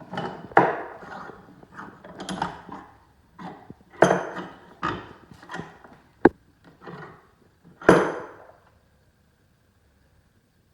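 Irregular clatter, rattles and knocks of tools and parts being handled, with one sharp click about six seconds in; it stops about two seconds before the end.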